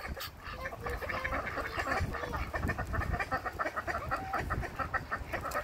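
A flock of ducks, white domestic ducks and mallards, calling with many short quacks in quick succession, a busy chatter that never stops.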